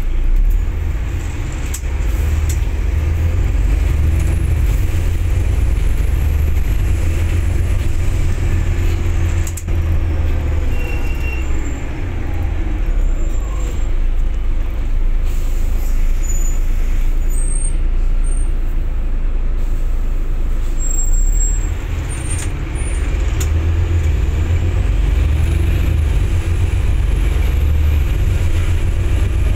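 Alexander ALX400 double-decker bus driving, heard from inside on the upper deck: a steady low engine rumble, its note rising and falling a few times as the bus speeds up and slows.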